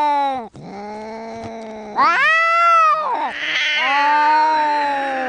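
Cats yowling at each other in a fight standoff: a long drawn-out wail that breaks off about half a second in, a lower steady moaning growl, then a louder higher yowl about two seconds in. A hiss comes in about three seconds in, under another long wail.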